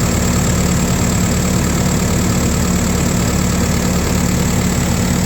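Diesel engine of a Case construction machine idling steadily, kept running so the air-conditioning compressor draws in refrigerant from the can, with a thin steady high whine over it.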